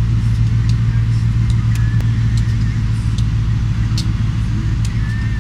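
Two GE Dash 9-44CW diesel-electric locomotives with V16 engines idling while standing, a steady low hum.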